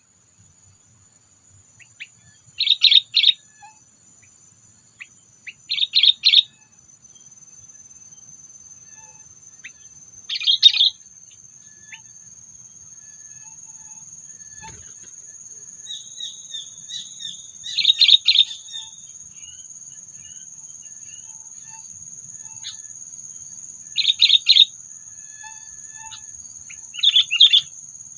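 Sooty-headed bulbul (kutilang) giving its call in six short bursts of quick notes, several seconds apart. Under it runs a steady high-pitched insect drone.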